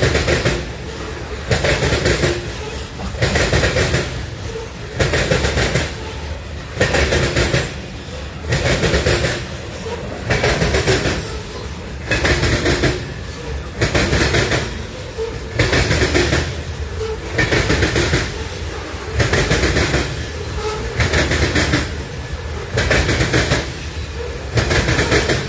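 CSX freight train cars rolling past at a steady speed, with a continuous low rumble and a burst of wheel clatter as each car's wheels go by, about every two seconds in a regular rhythm.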